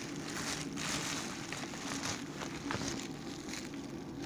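Plastic bubble wrap being handled and pulled open by hand: irregular crinkling and rustling with scattered small crackles.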